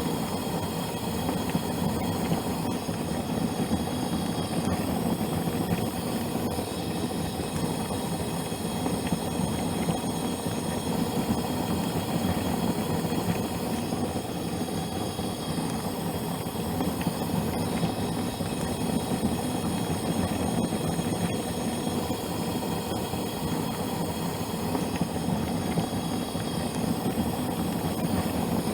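Water boiling hard on a gas stove: a steady, dense, low bubbling noise.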